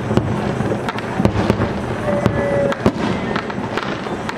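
Aerial firework shells bursting in a dense barrage: many sharp bangs in quick succession over a continuous low rumble and crackle.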